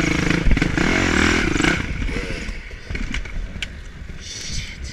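Dirt bike engine revving up and down under throttle. After about two seconds it drops to a quieter, steadier run, with a few sharp clicks and clatter.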